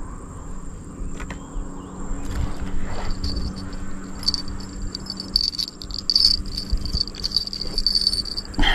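Insects chirping in riverside vegetation: a steady high buzz throughout, joined about three seconds in by a louder, pulsing high trill that stops just before the end.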